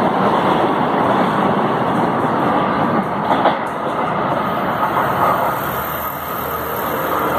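Fleet G metro trains running on the rails: steady wheel-on-rail rumble from a train passing close by, with a brief sharp click about three and a half seconds in, then a train approaching on the next track.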